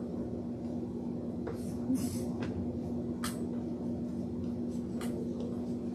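Quiet room tone with a steady low hum, broken by a few faint clicks and rustles.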